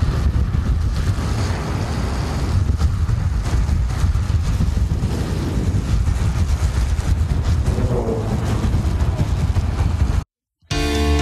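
Steady rushing road and wind noise of a downhill longboard run at speed: urethane wheels rolling on asphalt, with wind buffeting the microphone. It cuts off abruptly about ten seconds in.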